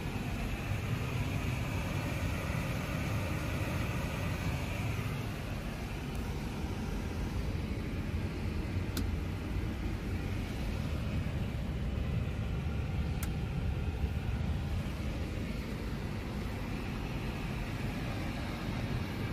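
Steady low rumble of an airliner cockpit's background noise, with two faint clicks about nine and thirteen seconds in.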